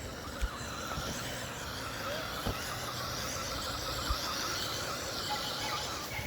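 Wltoys L959 RC car's brushed electric motor and drivetrain whining as it drives over grass, the pitch wavering up and down with the throttle, with a few soft knocks.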